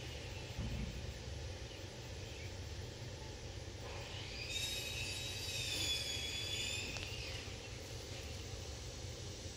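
Steady low outdoor background rumble, with a high squeal of several tones from about four and a half to seven seconds in.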